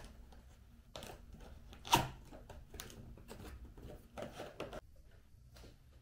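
Cardboard box being handled on a desk: scattered rustles, scrapes and light taps, with one sharper knock about two seconds in.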